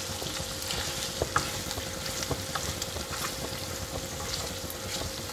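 Pork pieces with onion and chili sizzling steadily in a pan while a silicone spatula stirs them, with scattered light scrapes and taps of the spatula against the pan.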